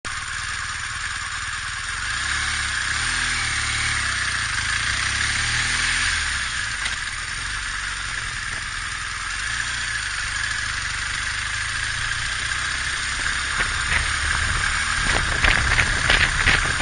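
BMW R1200GS boxer-twin engine running as the motorcycle rides along at low speed, under a steady rushing noise. A few sharp rattles and knocks come near the end.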